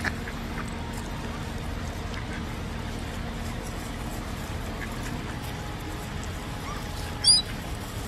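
Feral pigeons pecking on grass, heard as faint scattered taps over a steady outdoor hiss. About seven seconds in comes one short, high-pitched chirp, the loudest sound.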